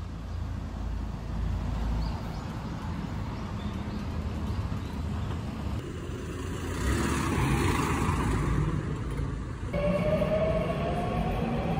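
Street traffic rumble with a broad rush that swells in the middle. About ten seconds in it gives way to the rising whine of an electric subway train's motors as the train accelerates.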